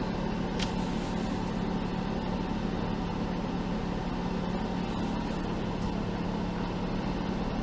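Off-road Jeep engine running steadily at low revs while crawling, a constant low drone, with one brief click about half a second in.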